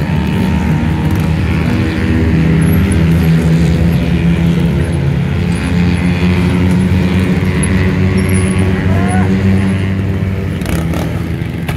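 Trials motorcycle engine running at a fairly steady pitch, a little louder in the middle, with a couple of sharp knocks near the end.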